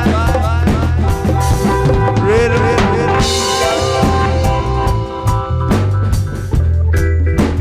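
Live reggae band playing an instrumental passage, with drum kit and bass to the fore and held and sliding melodic notes over them.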